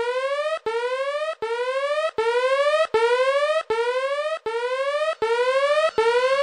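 Electronic whooping alarm tone: a pitched note sweeping upward again and again, restarting with a click about every three-quarters of a second.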